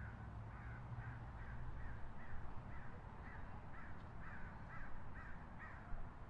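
A bird calling over and over in a fast run of short calls, about two a second, which stops near the end, over a low steady hum of city traffic.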